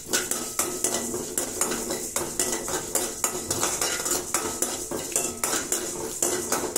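A metal spoon scraping and stirring parboiled rice as it dry-roasts on a high flame in an aluminium kadai, in quick repeated strokes, several a second.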